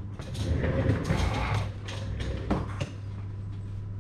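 Handling noise as a camera is picked up, moved and set down: a few knocks, clicks and rubbing for the first three seconds, then only a steady low hum.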